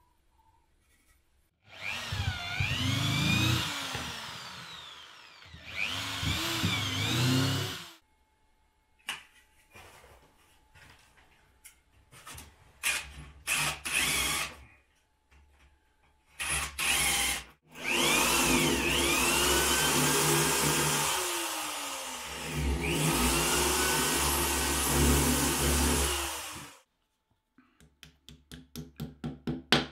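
Cordless drill running in bursts, its motor pitch sweeping up and down as the trigger is eased and squeezed. Two short runs come first, then scattered clicks and knocks, then one long run of about nine seconds, and a quick train of clicks near the end.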